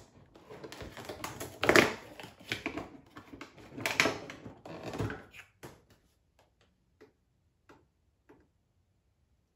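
Cardboard advent-calendar door being torn open and rustled, with two louder tearing crackles about two and four seconds in. A few light clicks follow as the small candle is taken out, then it goes quiet.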